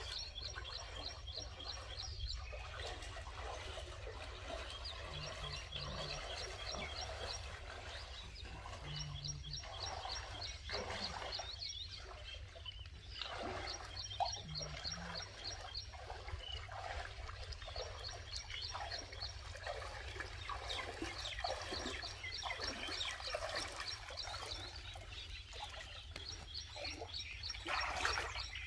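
A bird singing in repeated phrases, each a quick run of high chirps lasting a couple of seconds, over quiet steady outdoor background noise. Near the end, water splashes as someone wades through shallows.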